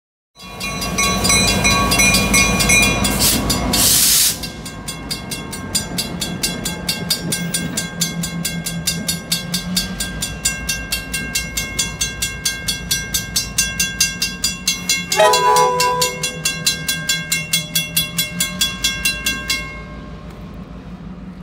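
Diesel locomotive sounding its horn for about three and a half seconds, then a bell ringing quickly and steadily over the low hum of the running engine. A second short horn blast comes about fifteen seconds in, and the bell stops near the end.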